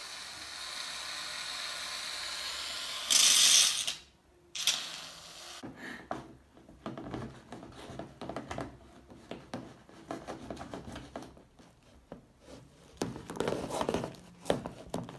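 Aerosol can of shaving foam spraying with a steady hiss, with a louder spurt about three seconds in that cuts off abruptly. From about six seconds in, a utensil stirs the foam into glue in a plastic tub: irregular soft scraping and squishing strokes.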